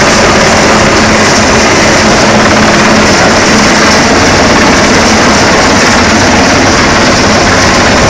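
Irish Coast Guard helicopter close overhead: a loud, steady noise of rotor and turbine engines.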